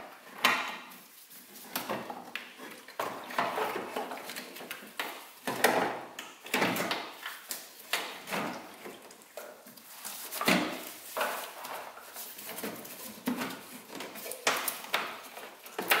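Plastic washer fluid reservoir of a BMW E46 being worked back into its mount by hand: irregular plastic knocks, clicks and scraping, with the rustle of gloved hands.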